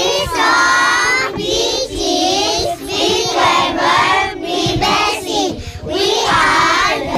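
A group of kindergarten children singing a song together, in short phrases with brief breaks between them.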